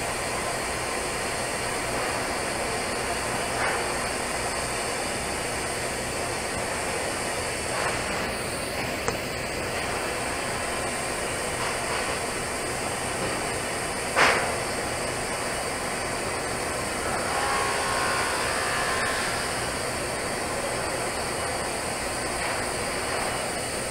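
TIG welding arc on a 12-inch steel pipe joint, hissing steadily while filler rod is fed in. One short sharp click comes a little past halfway.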